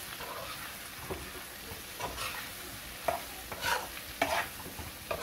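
Cubed potatoes sizzling in hot oil in a pan while being stirred, with several short scrapes of the utensil against the pan, mostly in the second half.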